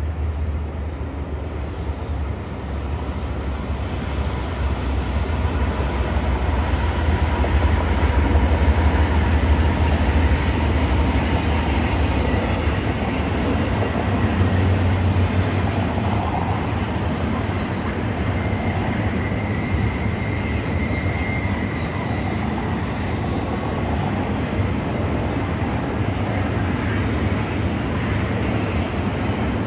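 Double-stack intermodal freight cars rolling past on a curve: a steady low rumble of steel wheels on rail, with faint high wheel squeal at times.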